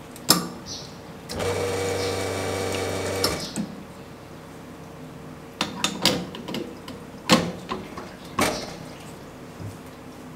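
A click, then an espresso machine's pump runs for about two seconds with water hissing through the group head, as in a group flush. Later comes a string of clicks and two loud metal knocks as the portafilter is fitted and locked into the group head.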